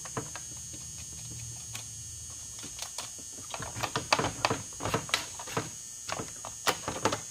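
Irregular clicks and light knocks from a chainsaw and its bar being handled while the bar is fitted, thickening from about three seconds in, over a faint steady hum.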